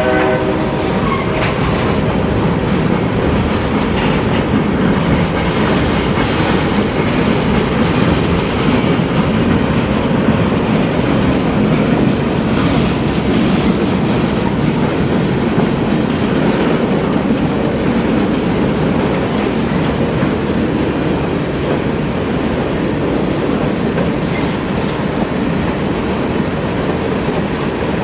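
Freight train cars rolling past with a steady rumble of steel wheels on rail and a clickety-clack over the rail joints. A train horn's last blast cuts off right at the start.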